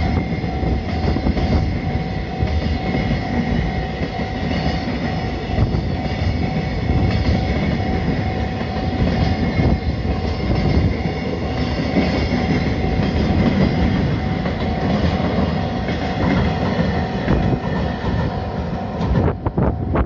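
Long JR Freight container train rolling past at close range: a steady rumble of wagon wheels on the rails, clacking over the rail joints, with a thin steady ring above it. Just before the end it gives way to wind buffeting the microphone.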